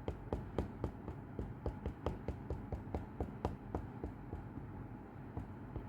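Stamp being dabbed repeatedly onto a black ink pad: light quick taps, about four a second, thinning out near the end.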